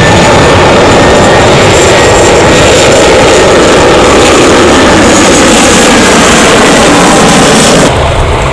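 CFM56 jet engines of an Airbus A320 running loud as the airliner arrives: a dense, steady roar with a thin high whine. The sound drops off suddenly near the end.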